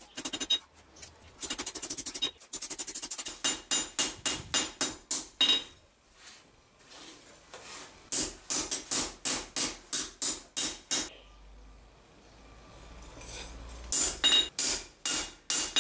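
Hand hammer striking a hot 52100 steel knife blank on a steel anvil, forging the blade: runs of ringing metal blows about three a second, with short pauses between runs.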